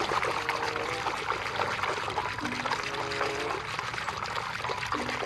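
Water pouring and trickling steadily over a muddy toy as it is washed clean.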